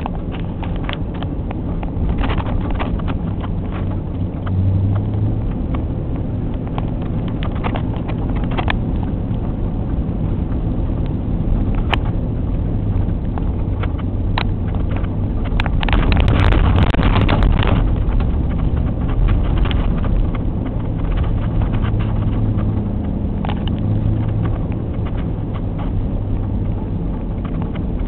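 Vehicle engine running and tyres rolling over packed snow, heard from inside the cab while driving, with scattered knocks and rattles from bumps and a louder, rougher stretch about halfway through.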